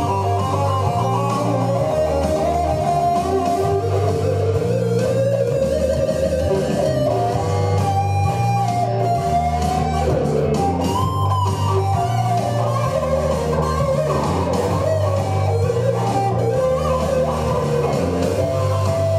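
Les Paul-style electric guitar playing a lead solo: single-note melodic lines with string bends, over a low bass line that changes notes in steady steps.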